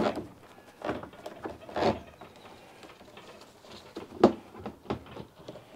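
A handful of short knocks and scrapes as a fuel pump assembly is handled and turned inside a motorcycle fuel tank while a wire is fed through. The sharpest clunks come at the start and about four seconds in.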